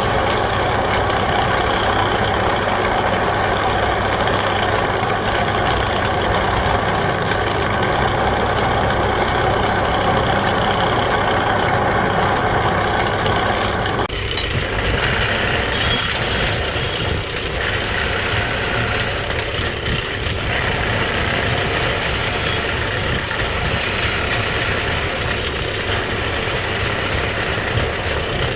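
Wood lathe running steadily, with a turning tool cutting the spinning wood. About halfway through, the high hiss drops away suddenly.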